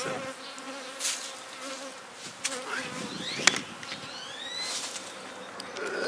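Honey bees buzzing in flight around a hive with a swarm clustered at its entrance, a steady hum with bees passing close. A sharp tap stands out about three and a half seconds in.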